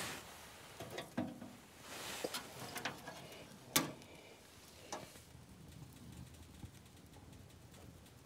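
Door of a small metal wood-burning tent stove being swung shut and latched: a few light metallic clicks and clanks in the first five seconds, the loudest about 4 s in, then only faint background.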